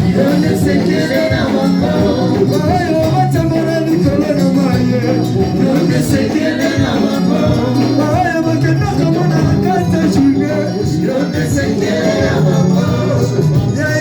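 Church worship music: singing over a band with a steady, repeating bass line and regular shaker-like percussion.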